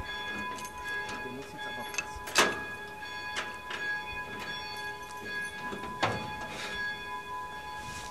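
Keys clinking and two sharp metallic knocks with a short ring, about two and a half seconds in and again about six seconds in, against a corrugated galvanized steel storage container.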